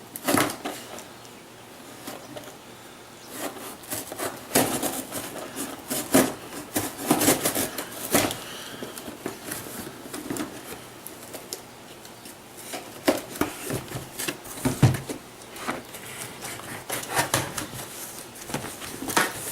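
Cardboard shipping box being cut open with a knife and its flaps and packing handled: a string of irregular scrapes, rips and knocks.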